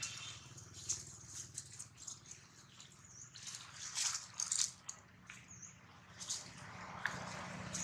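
Dry fallen leaves crackling and rustling in short, irregular bursts under long-tailed macaques moving about, along with the handling of a banana and its peel; the loudest crackles come about four seconds in.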